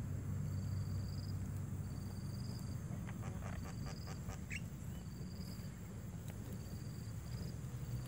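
An insect chirping a short high note over and over, about once every second and a half, over a low steady rumble. About three seconds in, a brief run of rapid clicking chatter.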